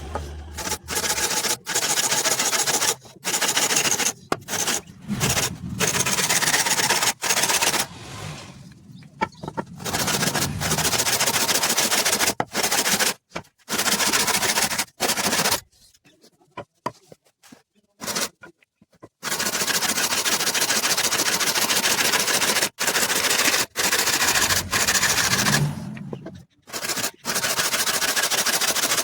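Power woodworking tools cutting or shaping wood, giving loud, even noise chopped by many sudden cuts and a few short silent gaps.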